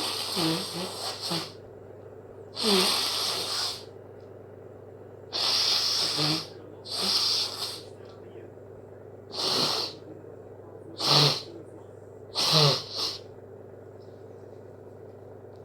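A person sneezing over and over in a hay fever fit: a run of about seven wet sneezes, one every second or two, some starting with a short voiced catch before the burst of air.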